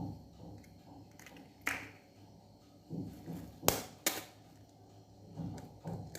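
Eggs being cracked against a bowl to separate the yolks: a few sharp taps and cracks of eggshell, the loudest two close together a little past halfway.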